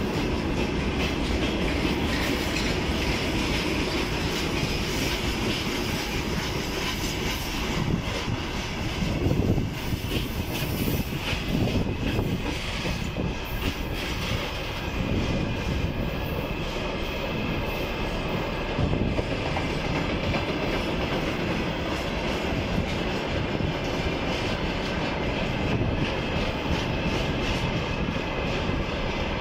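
Freight wagons rolling past at speed: a steady heavy rumble, with the wheels clattering over the rail joints. Open gondola wagons pass first, then tank cars.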